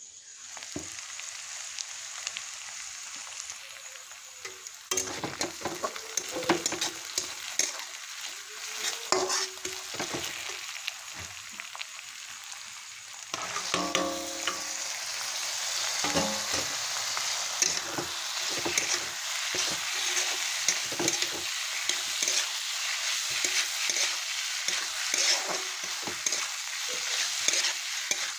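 Pigeon meat frying in hot oil in a metal kadai: a steady sizzle, with a spoon scraping and knocking against the pan as it is stirred. The sizzle jumps louder about halfway through, when the meat lands in the oil.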